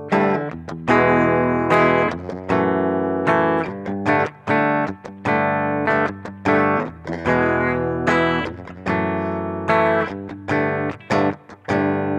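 Upgraded Chibson electric guitar strumming chords, each struck sharply and left to ring, about one every second, played completely clean through a Marshall amp's clean channel taken straight from its DI out, with no effects and not even reverb.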